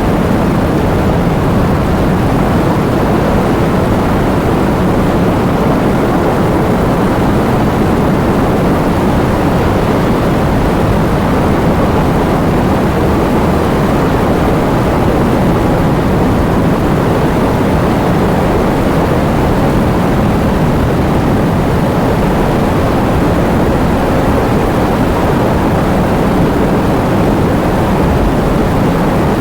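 Heavy rain with wind: a steady, dense rushing noise, weighted toward the low end, with no separate drops or gusts standing out.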